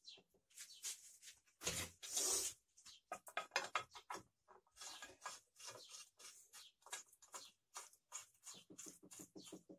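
Hands fitting parts onto the clutch side of a Taiga 214 chainsaw: a string of small clicks, knocks and scrapes of plastic and metal parts, with a longer scrape about two seconds in and a quick run of ticks near the end.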